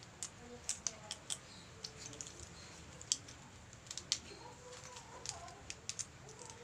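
Irregular sharp plastic clicks and small knocks as a phone-holder clamp is fitted and screwed onto a Gorilla Pod flexible tripod by hand.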